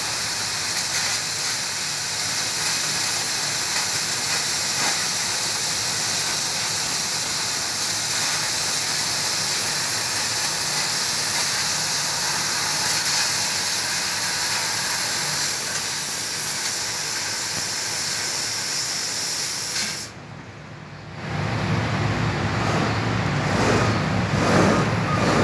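3 kW fiber laser cutting thin metal sheet: a loud, steady hiss of assist gas and cutting from the nozzle, which stops suddenly about 20 seconds in as the cut finishes. After a brief dip, a lower steady machine hum carries on.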